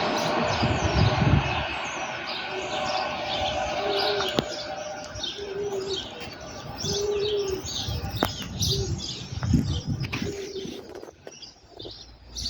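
Small birds chirping busily while a dove coos in short repeated phrases, as the rumble of a passing train fades away over the first couple of seconds.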